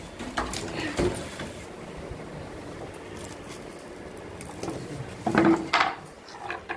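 Dried maize cobs knocking and rattling against each other and the concrete floor as they are handled and shelled by hand, with a few sharper knocks, the loudest about a second in.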